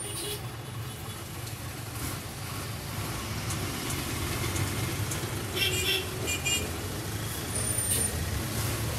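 A bus engine running steadily with street traffic noise, and a few short high-pitched sounds a little past halfway.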